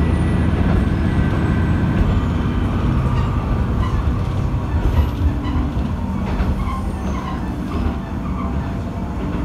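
Matsuura Railway MR-600 diesel railcar running along the line, heard from inside the car: a steady low rumble of the engine and the wheels on the rails.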